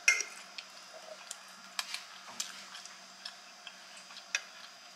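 Close-miked chewing of lasagna and garlic bread: a string of scattered, sharp wet mouth clicks and smacks, the loudest right at the start.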